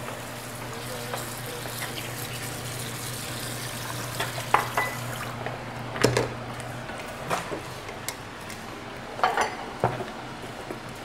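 Kitchen work at a sink: dishes and utensils clink now and then, over a steady hiss that stops about five seconds in and a low, even hum.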